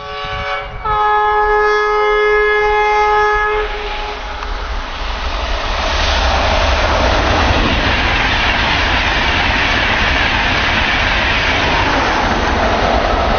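Train horn sounding two notes, a short one then a different note held for about three seconds. An express train then passes at speed, with a rising rush of wheel and rail noise that stays loud.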